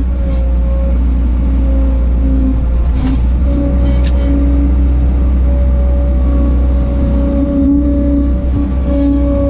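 1988 Bobcat 743 skid steer running while it works, a steady low engine drone with a wavering higher tone over it. Two sharp knocks come about three and four seconds in.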